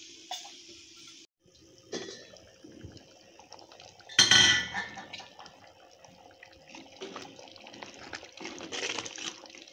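Steel lid and clay cooking pot being handled: one loud metal clank with ringing about four seconds in. After it, thick tamarind curry bubbles at a simmer, and a steel ladle stirs and scrapes through it near the end.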